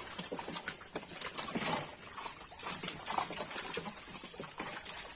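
Many tilapia thrashing in shallow water inside a crowded seine net: a dense run of quick splashes and wet slaps.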